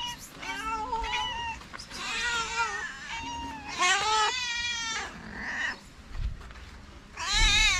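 Stray cats meowing over and over, about six meows in a row with the loudest near the end: they are begging for food and attention.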